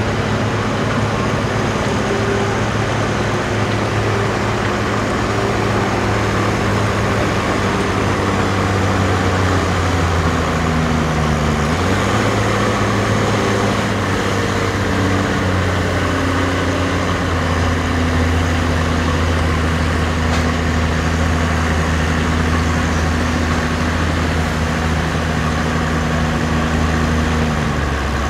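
Allis-Chalmers D19 tractor engine working hard under load, pulling a weight-transfer sled. Its pitch sags as it lugs down about ten seconds in, jumps back up a moment later, then holds steady until it drops off near the end.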